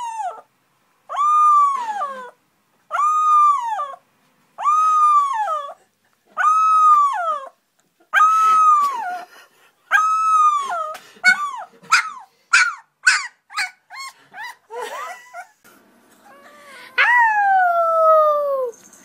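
A young puppy howling: a string of about six howls, each held for roughly a second and dropping off at its end, coming every second and a half or so, then breaking into a quick run of short high yips. Near the end a chihuahua gives one long howl that slides steadily down in pitch.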